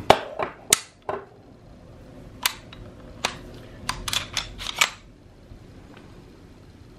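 Sharp metallic clicks of an AREX Rex Zero 1 T pistol's action worked by hand with the magazine out, as the trigger and its reset are checked: a few clicks in the first second, single clicks about two and a half and three and a quarter seconds in, then a quick run of about five clicks between four and five seconds in.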